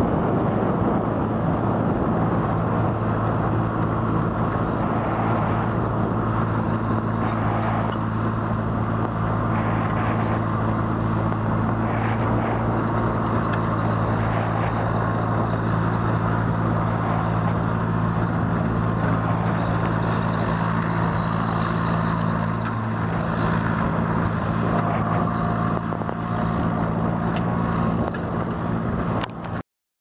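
Fendt 415 Vario tractor's diesel engine running steadily under load while pulling a four-furrow plough through the soil. The sound cuts off abruptly near the end.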